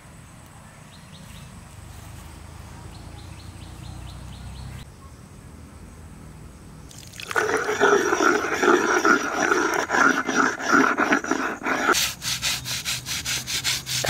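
A wet shil pata (flat stone grinding slab) being scrubbed clean: from about seven seconds in, a hand-held stone is rubbed back and forth over it, a loud rough rasping. About five seconds later it changes to quicker, evenly spaced brushing strokes with a bundle of straw. Before the scrubbing there is only a low outdoor rumble and a few faint bird chirps.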